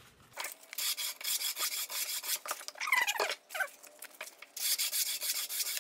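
Sandpaper on a sanding block rubbed quickly back and forth over a pine 2x4 tenon, in two spells of rapid scratchy strokes with a brief squeak in the pause between them. The tenon is being sanded down because it is a little too thick to fit its mortise.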